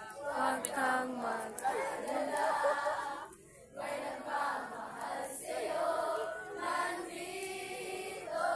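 A group of scouts singing together, breaking off briefly a little past three seconds in before going on.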